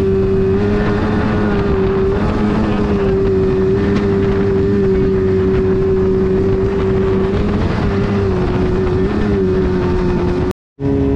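Kawasaki 750 two-stroke jet-ski engine driving a jet jon boat, running at a steady speed with an even droning pitch that dips slightly now and then, over water and wind noise. The sound drops out for a moment near the end.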